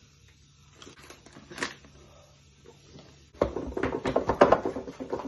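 A few soft clicks of handling, then, about three seconds in, a wooden spoon starts beating cupcake batter in a mixing bowl: a fast, steady run of knocks and scrapes against the bowl.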